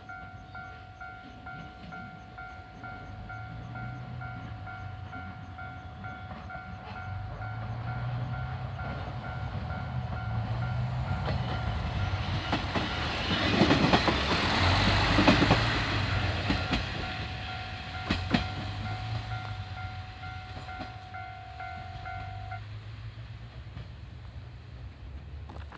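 Level-crossing warning bell ringing in a steady repeating pulse while a diesel railcar passes over the crossing. The railcar's engine and wheel noise is loudest around the middle, with a sharp click a few seconds after the peak. The bell stops a few seconds before the end, and a low engine hum carries on.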